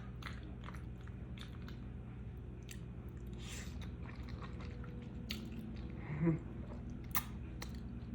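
Close-miked chewing and biting of food, with scattered wet mouth clicks and smacks.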